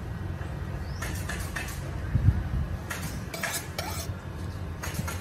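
Light clinks and taps of a knife and kitchen utensils as ingredients are cut by hand over a clay mortar, with one duller thump about two seconds in. A steady low rumble runs underneath.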